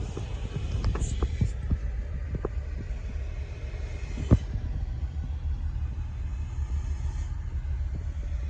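Mercedes Unimog diesel engine running at idle: a steady low throbbing rumble, with scattered light clicks and one sharper click about four seconds in.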